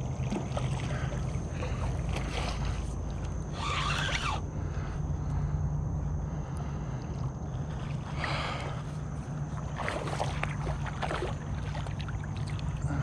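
A hooked snook splashing and thrashing at the water's surface in several short bursts during the fight, over a steady low wind rumble on the microphone.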